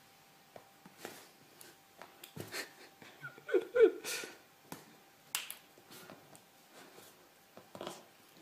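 Light taps and clicks from a thin stick being flicked and batted about on a sofa during play with a cat. A short, louder voice-like sound comes about three and a half seconds in.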